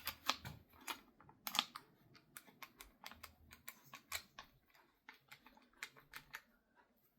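Socket ratchet clicking in short, irregular runs while tightening bolts, a few sharp clicks a second.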